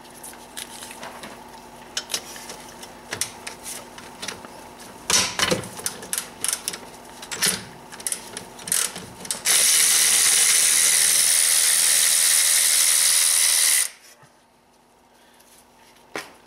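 Metal tools clicking and knocking against the brake caliper as its guide screws are worked loose, then a power tool runs steadily for about four seconds and cuts off abruptly.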